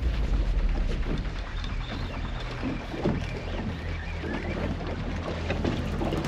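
Boat engine running steadily with a low hum, under wind and water noise.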